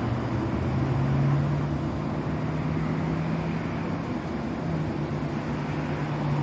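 Norfolk Southern diesel freight train passing a grade crossing: a steady rumbling noise with a low, even drone from a diesel locomotive that sets in about half a second in.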